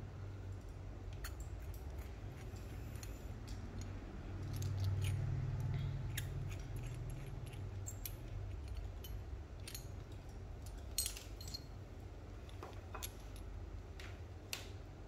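Scattered small metal clicks and clinks of WBT-0102 Ag RCA plugs being handled and taken apart, their black barrel sleeves coming off the metal bodies, over a steady low hum that swells for a couple of seconds near the middle.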